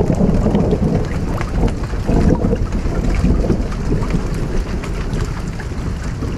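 Low rolling thunder rumbling over a running creek, with water splashing and trickling throughout.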